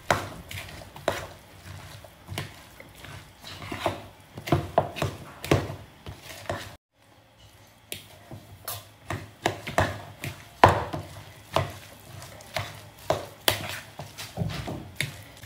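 A spoon stirring potato salad in a bowl: irregular knocks and scrapes against the bowl as the mashed potatoes, mayonnaise and diced vegetables are turned over. The knocking stops for about a second midway, then carries on.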